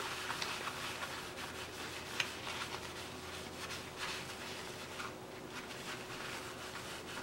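Ceramic bearing balls being rubbed inside a folded paper towel: a faint, steady paper rustle with scattered small clicks.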